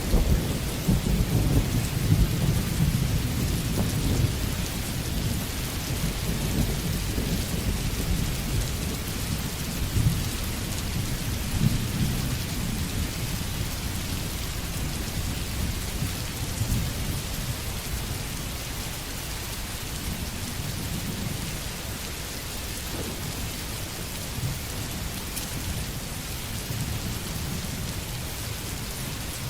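Steady sizzling and crackling of jackfruit curry cooking in a pan, with a low rumble that is strongest in the first few seconds and eases after.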